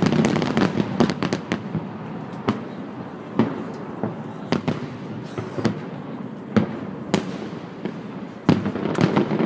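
Festive fireworks salute going off: a string of sharp bangs at irregular intervals, some in quick clusters, over a steady background noise.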